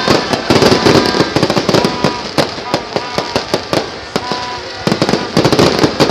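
Fireworks display: rapid, overlapping bangs and crackling, densest about half a second in and again near the end.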